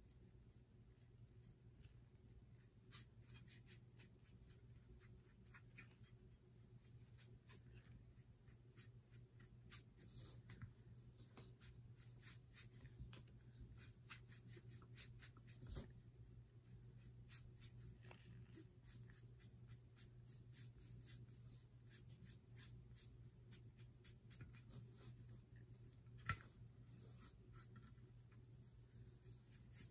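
Faint, irregular scratchy strokes of a foam sponge brush dragging and dabbing alcohol ink across a painted metal tray, over a steady low hum, with one sharp tick near the end.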